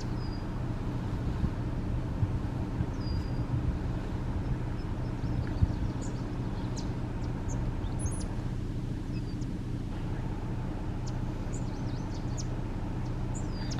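A steady low engine hum that does not change, with faint short bird chirps scattered over it.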